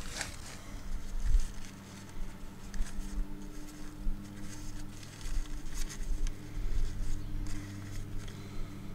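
Small clicks and taps of hands working at the fill port of a hydrostatic transaxle, over a steady low hum.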